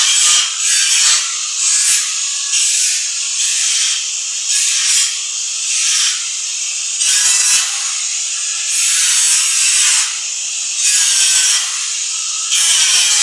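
Angle grinder working on steel, its rough grinding noise swelling and easing with each pass across the metal.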